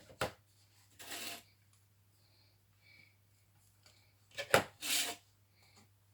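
Hands handling a multimeter's test leads and a lithium-ion flashlight battery on a workbench: a few sharp clicks and knocks, and two short rustling scrapes, about a second in and again near five seconds, over a low steady electrical hum.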